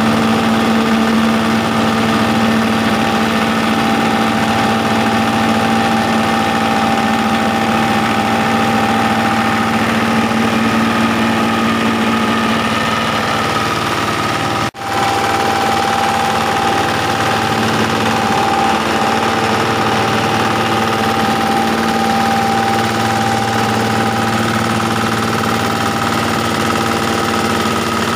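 Rice-husk grinding mill running steadily, belt-driven by a stationary engine, with a steady whine over the engine's running. The sound briefly cuts out about halfway through.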